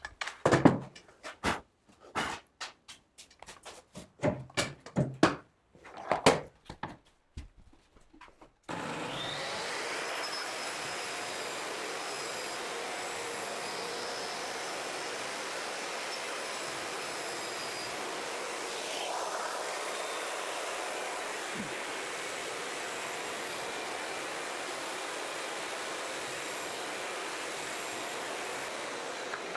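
A run of sharp knocks and clicks from carpentry work on a wooden door frame for the first eight seconds or so. About nine seconds in, a steady rushing machine noise starts abruptly and holds level.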